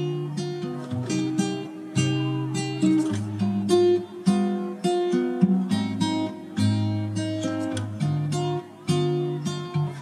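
Background music: an acoustic guitar picking notes and chords at an easy pace.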